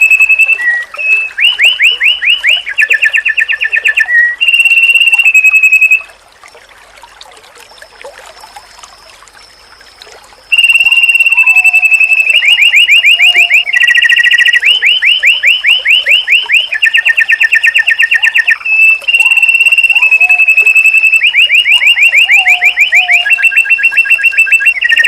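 Loud white-eye (pleci) song: long steady whistled notes alternating with fast trills of rapidly repeated notes, the same phrases coming round again and again. It breaks off for about four seconds some six seconds in, then resumes.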